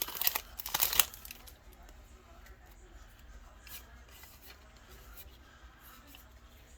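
Foil Yu-Gi-Oh booster pack wrapper crinkling and tearing sharply for about the first second, then only a few faint ticks from handling.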